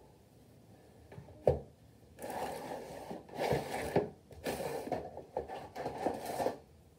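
A single sharp click about one and a half seconds in, then several bursts of rubbing and scraping from objects being handled close by.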